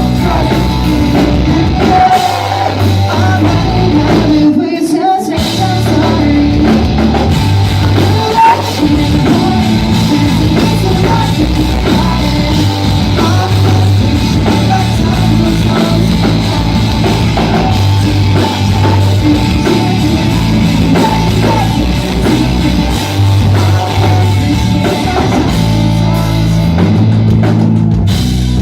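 Pop-punk band playing live: electric guitars, bass and drum kit with a singer, loud and continuous, with a short break in the music about five seconds in.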